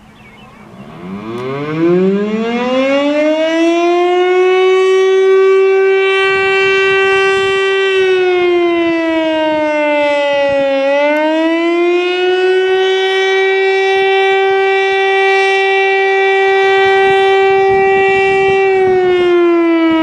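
Federal Signal STL-10A single-tone mechanical fire siren winding up from a low pitch to a steady high tone over about three seconds, holding, then dipping and rising back once in the middle and starting to fall again near the end: the rising-and-falling Attack signal. It is very loud.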